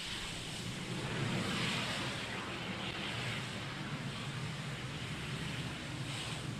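Twin jet engines of a NASA F/A-18 Hornet running as it taxis along the runway: a steady rushing noise with a hissing whine.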